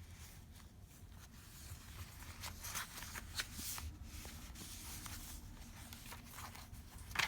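Paper rustling and pages turning as a handmade junk journal is leafed through, with small scattered clicks and a sharper snap near the end over a low steady hum.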